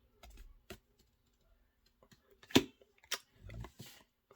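Pokémon trading cards handled and flipped through one at a time: scattered light clicks and taps, the sharpest about two and a half seconds in, with a soft rustle a second later.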